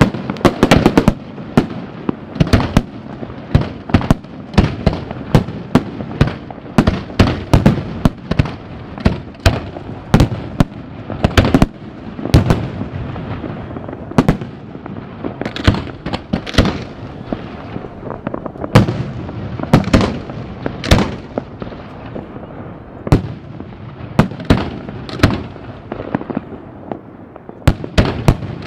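Aerial fireworks bursting in a continuous barrage: sharp bangs one after another, often several a second, over a steady rumble between them.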